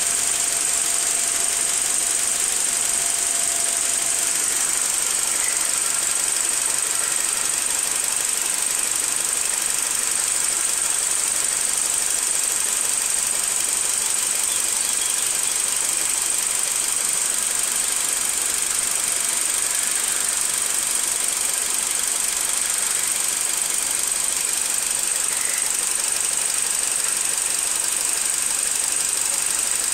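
BMW 116i's 1.6-litre four-cylinder petrol engine running at a steady, even speed, with no revving. A steady high hiss runs over it.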